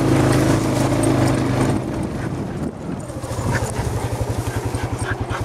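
An engine running: a steady low hum for about two seconds, then a fast, even low putter.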